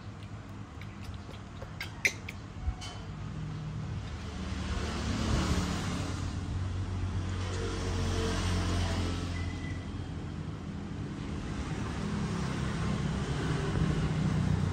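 Low engine rumble of a motor vehicle that swells, eases off and builds again, with a few sharp clicks about two seconds in.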